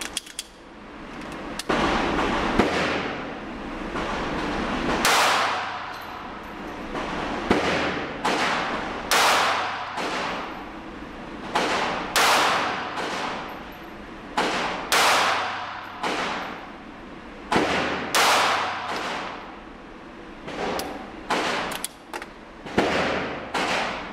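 Pistol gunshots echoing in an indoor range: about twenty sharp cracks at irregular spacing, some in quick pairs, each with a long reverberant tail. Among them is a five-round group of S&B .380 ACP from a Diamondback DB380 pocket pistol, mixed with shots from other lanes.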